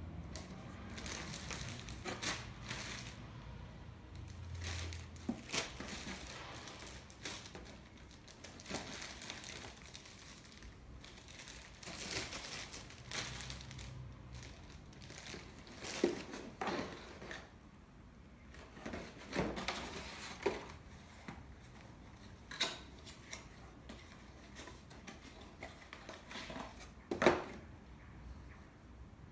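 Clear plastic packaging bags crinkling and cardboard boxes being handled during unpacking, in irregular rustles, with a few sharp knocks as items are set down, the loudest near the end.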